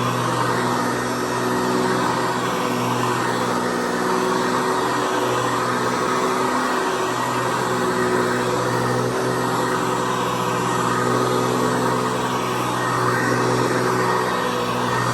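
Hoover Convertible Elite U4153 upright vacuum running steadily: its motor and 12-blade plastic fan give a constant hum over a rush of air.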